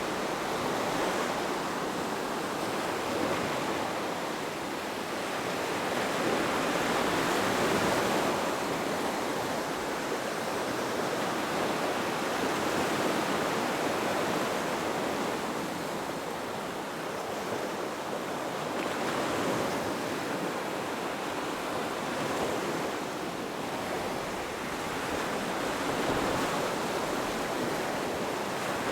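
Ocean waves breaking and washing on a beach, a steady surf that swells and recedes every few seconds.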